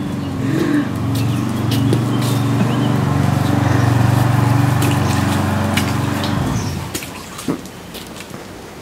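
A motor runs steadily with a low hum and stops about seven seconds in. Near the end there is a light splash as rubber toy ducks land in a water-filled plastic paddling pool.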